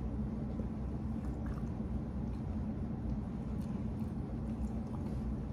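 Steady low hum with a few faint small clicks.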